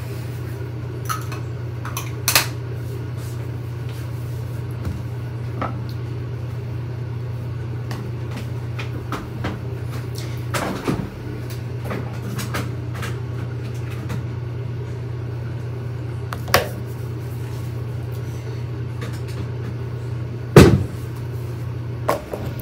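A steady low hum throughout, with a handful of scattered clicks and knocks as skincare bottles and caps are handled and set down on a bathroom sink counter. The loudest knock comes near the end.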